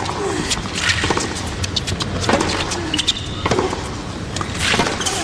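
Tennis stadium crowd murmuring between points, with scattered clicks and a few spectators calling out.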